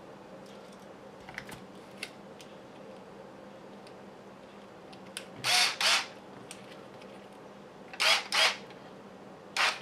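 Small parts being handled during kit assembly: a few faint clicks, then short rasping noises, two in quick succession twice and one more near the end.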